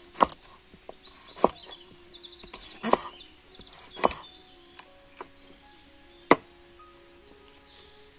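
A kitchen knife chopping peeled Lasia spinosa (kohila) stems on a wooden cutting board: six sharp chops at uneven intervals of about a second, the loudest near the end.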